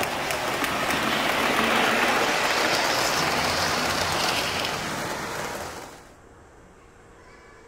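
O-scale model train running past on three-rail track, its wheels and motor giving a steady rolling rumble and hiss that swells as it comes close, then drops away sharply about six seconds in.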